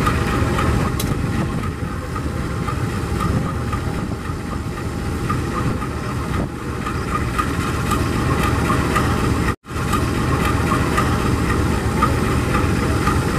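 Diesel-electric locomotives idling at a standstill, a steady engine rumble; one is the GE-built CC 203 at the head of a ballast train, waiting to depart. The sound cuts out for an instant about ten seconds in.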